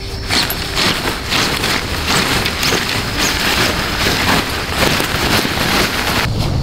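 Tent fabric rustling and crinkling as a tent pole is pushed through the pole sleeve of a Hilleberg Una tent, a dense run of irregular crackles.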